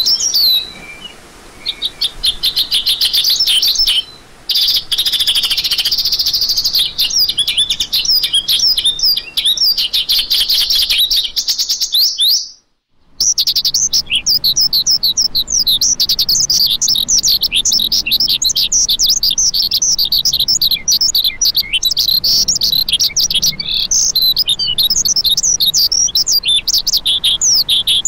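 Lark song: a fast, continuous stream of high chirps and trills, cutting out for under a second about halfway through.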